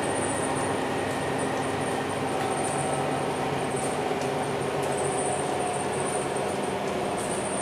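Inside a MAN NL323F A22 single-deck city bus moving at low speed: its rear-mounted six-cylinder diesel and the road noise make a steady drone, with a faint whine that drops slightly in pitch.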